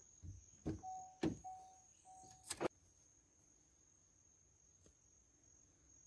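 Faint, steady high-pitched insect drone from the grassland. In the first few seconds, a few sharp knocks and a short low tone sounded three times in quick succession.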